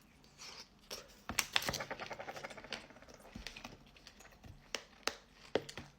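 Small clicks and taps from handling and eating pomegranate seeds: a quick run of ticks, then a few scattered sharper clicks.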